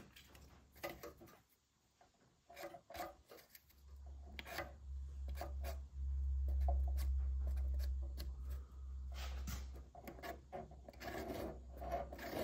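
A cardboard template rubbing and scraping against a car's steel underbody as it is held up and shifted into place, with scattered light taps and clicks. A low steady hum comes in about four seconds in, loudest in the middle.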